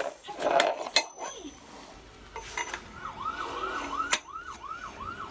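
Metal poles of a steel rolling cart clinking as they are handled and twisted together, with sharp clinks at the start, about a second in and just after four seconds. From about three seconds in, a siren-like warbling tone rises and falls about two and a half times a second.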